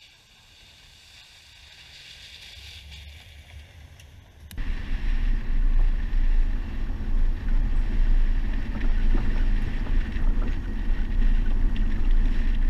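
An SUV approaching along a dirt track, its sound growing steadily louder; about four and a half seconds in, this gives way suddenly to a loud, steady low rumble of the vehicle driving on the gravel track, with wind buffeting a camera mounted on its bonnet.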